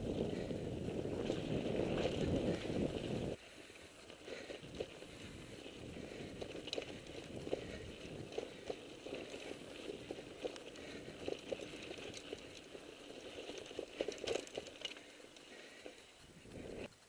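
Mountain bike ridden over a rough, rutted dirt track, recorded on a helmet camera. A loud low rush of wind on the microphone cuts off suddenly about three seconds in. After that the tyres run on dirt and the bike rattles over bumps with frequent small knocks.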